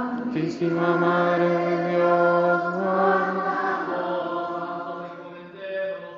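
Orthodox liturgical chant: a male voice sustaining long, steady notes, stepping up in pitch near the middle and fading away toward the end.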